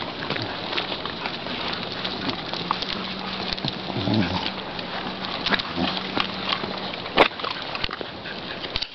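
Dogs eating and scuffing about on gritty ground, with a constant crackle of small clicks. A brief low whine comes about four seconds in, and a sharp click a little after seven seconds.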